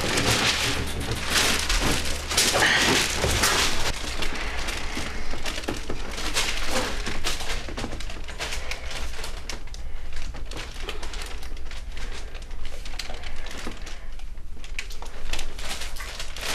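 Irregular crackling and rustling of the paper cover on an exam table as a leg in a cast is shifted and handled. It is busiest in the first few seconds and thins out later.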